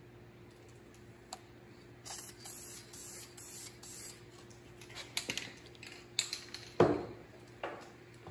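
Aerosol spray paint can hissing in bursts, one of about two seconds and then a few shorter spurts, as paint is sprayed through a stencil. A few sharp knocks follow near the end, the loudest about seven seconds in, over a faint steady hum.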